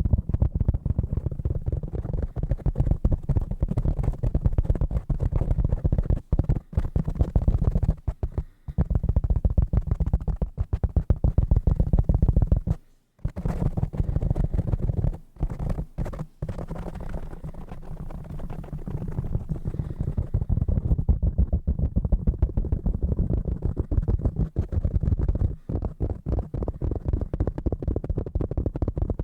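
Fast, dense fingertip tapping on assorted desk objects close to the microphone, dull and bass-heavy. It stops for a few short breaks, the longest about halfway through.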